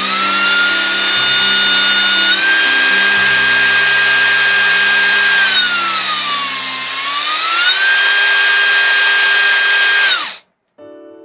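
Dong Cheng cordless impact driver running free with no load: a steady motor whine that steps up in pitch about two seconds in, slows and speeds up again around the middle, and cuts off abruptly near the end.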